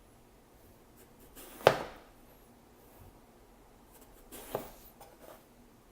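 Kitchen knife slicing through an eggplant into rounds, each stroke ending in a sharp knock of the blade on the cutting board. Two cuts about three seconds apart.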